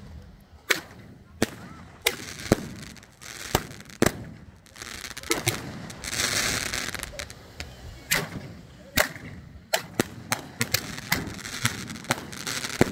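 Consumer fireworks going off on the ground: an irregular string of sharp bangs and pops, with a stretch of hissing about six seconds in.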